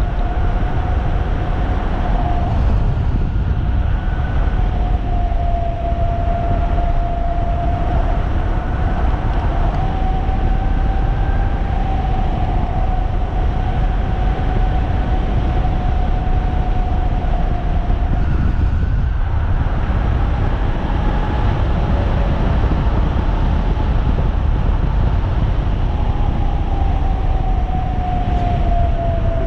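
3,000-watt electric bike's motor whining steadily while riding, its pitch drifting slowly up and down with speed and dropping out briefly about two-thirds of the way through, over heavy wind rumble on the microphone.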